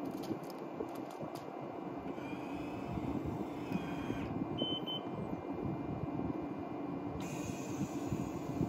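Powered deck cover over a sports boat's cockpit opening on its electric drive, with a steady motor hum throughout. Two short high beeps come about four and a half seconds in.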